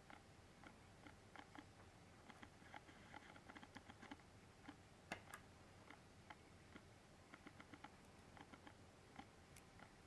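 Near silence with faint, irregular little clicks and taps from a bent paperclip and small metal button parts being handled between the fingers. There is one sharper click about five seconds in.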